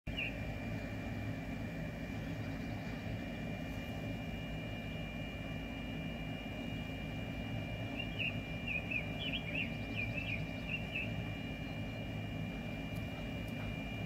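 Outdoor field ambience: a steady low background noise with a thin, steady high whine, and a quick run of small bird chirps about eight to eleven seconds in.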